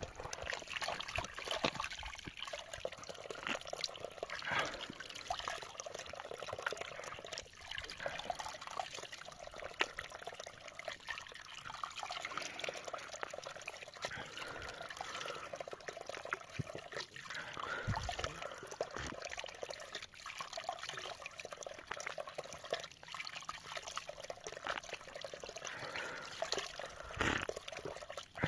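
Running water trickling and splashing steadily, with many small irregular clicks and drips.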